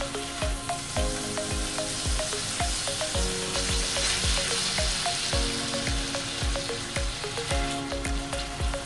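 Thin-sliced beef strips sizzling in a hot nonstick frying pan as they are stirred with a silicone spatula. Background music with a steady beat plays along.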